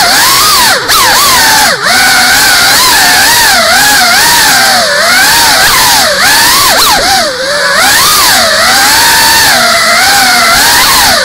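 Cinewhoop FPV drone's brushless motors and ducted propellers whining, the pitch swooping up and down constantly with the throttle. Twice in the first two seconds the sound dips briefly as the throttle is cut.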